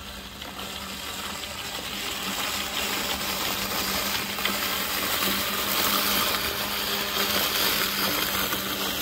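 Mammotion Luba AWD 3000 robotic lawn mower running as it mows, a steady low hum from its motors under an even hiss, growing gradually louder as the mower comes closer.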